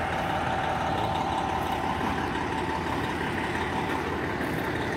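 Fire truck engine idling with a steady rumble.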